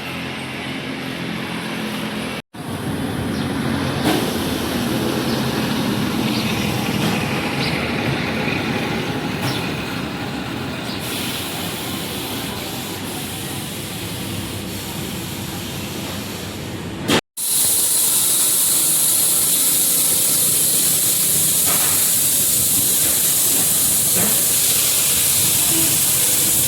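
A car on the move: steady engine and road noise mixed with a hiss, in three pieces that cut off abruptly twice. The last piece carries the loudest, even hiss.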